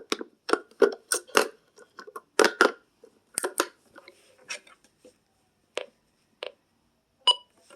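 AA batteries being handled and fitted into a weather radio's plastic battery compartment: a run of irregular clicks and clatters. A short high beep comes near the end.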